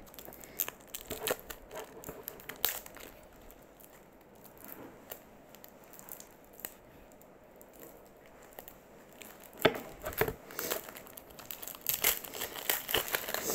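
Plastic wrapping around a stack of trading cards crinkling and rustling as the cards are worked out of it by hand, with scattered crackles and taps. It is quieter in the middle and busiest in the last few seconds.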